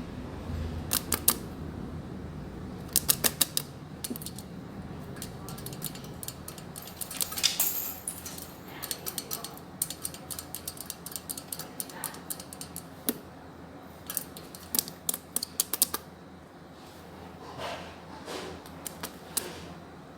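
Long natural fingernails tapping on a hard surface: short runs of quick, sharp clicks, repeated every few seconds with pauses between.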